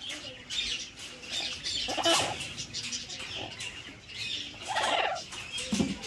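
Parrots calling in short squawks, one about two seconds in and another near five seconds, over scattered chirps from other birds, with a yellow-headed Amazon parrot flapping its wings near the end.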